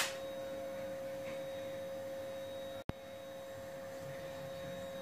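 Steady mid-pitched electrical hum, one held tone, broken by a single sharp click about three seconds in.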